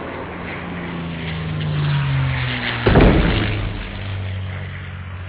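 Logo intro sound effects: a rushing rumble with a low tone sliding down in pitch, then a heavy thud about three seconds in, followed by a steady low hum.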